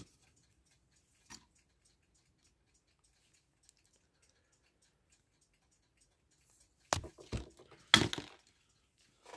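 Small hand tools clicking and knocking against a wooden workbench. There is a faint click about a second in, then a quick run of sharp clicks and knocks about seven to eight seconds in, the loudest near eight seconds.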